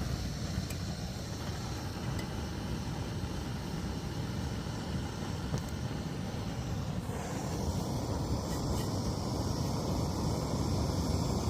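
Backpacking canister camp stove burning under a pot of water, a steady rushing roar as the water heats toward the boil.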